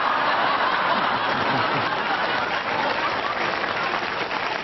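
An audience applauding steadily, with some laughter mixed in.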